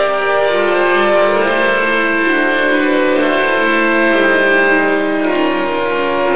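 Pipe organ playing a classical piece: several held notes sounding together, the parts moving to new notes in steps every second or so.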